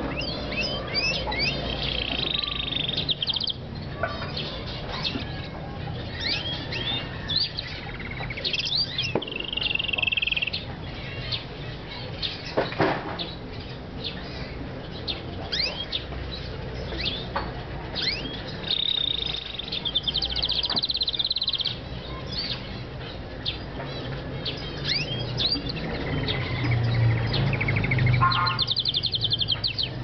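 White male canary singing a long, varied song of quick chirps and sweeping whistles, broken four times by fast rolling trills.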